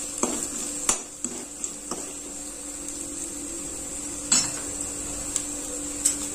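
Perforated metal spatula stirring and scraping in an aluminium kadhai, with a few sharp metal-on-metal clinks spread through, the loudest about four seconds in. A steady low hum runs underneath.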